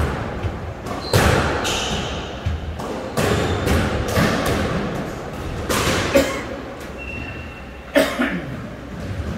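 Squash rally: the ball cracking off rackets and the court walls in sharp, echoing hits about every second, the last strong hit about eight seconds in.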